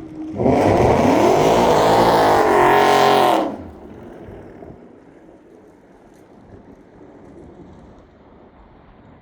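Mustang GT's 5.0 V8, fitted with long-tube headers and a Roush H-pipe and axle-back exhaust, accelerating hard past the microphone. The engine note climbs and then falls in pitch and cuts off sharply after about three seconds.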